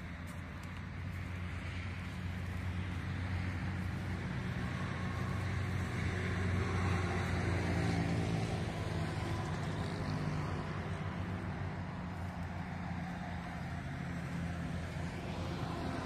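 Road traffic: a motor vehicle's engine hum and tyre noise from the adjacent highway, swelling to its loudest about halfway through as it passes and then fading.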